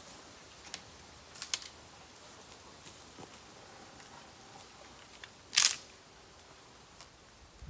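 Bamboo bonfire crackling: a few sparse sharp snaps over a low background hiss, with one louder crack a little past halfway.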